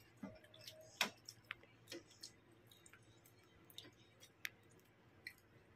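Near silence broken by faint, irregular clicks and taps of a spoon against a bowl and dishes during a meal, the loudest about a second in.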